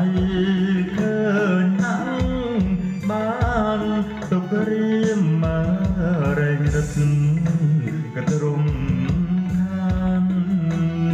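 A man singing a Khmer song into a handheld microphone over instrumental backing music with a steady bass line and drum beat.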